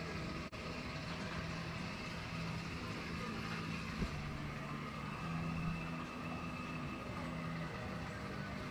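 Steady low mechanical hum with a single light knock about four seconds in.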